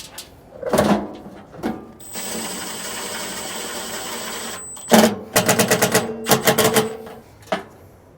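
Metal clanks and rattles from a furnace blower wheel and its housing being handled and fitted. There is a steady rushing noise for about two and a half seconds, then a sharp knock and a run of rapid clicking.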